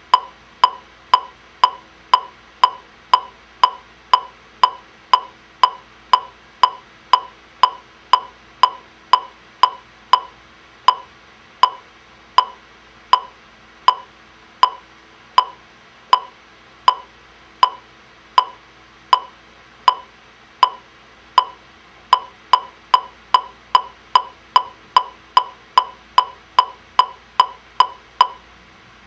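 Digimet electronic metronome clicking through its horn speaker as it steps through programmed tempo presets: a steady click at 120 beats a minute, slowing to 80 about eleven seconds in, then speeding up to 148 about twenty-two seconds in. It stops just before the end, at the programmed fermata where it waits to be restarted.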